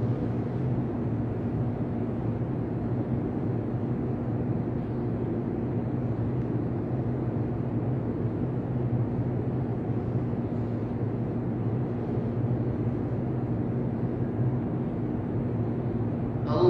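Steady low hum and rushing room tone of a large mosque prayer hall during a silent pause in the prayer; an amplified voice begins right at the end.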